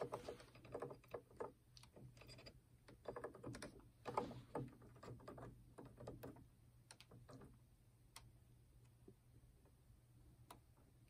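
Faint, irregular small clicks and taps of fingers working on the stereo's plastic CD mechanism while fitting a replacement rubber drive belt, busy at first and thinning out after about five seconds.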